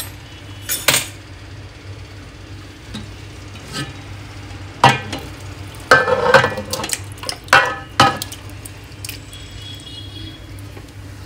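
Metal cooking pots and a spoon clinking and scraping as thick chicken masala is spooned out of one pot onto a layer of rice in another. Several sharp metallic knocks, bunched about halfway through, over a steady low hum.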